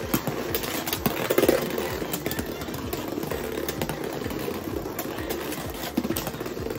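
Two Beyblade X spinning tops whirring around a plastic stadium with repeated sharp clacks as they hit each other and the walls. The loudest clash comes about one and a half seconds in.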